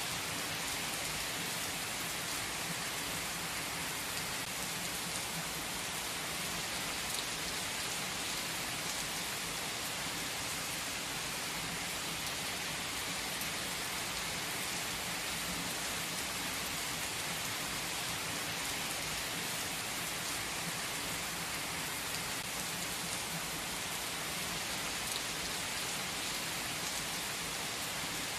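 Heavy rain pouring onto an asphalt car park and parked cars, a dense, steady hiss of splashing drops.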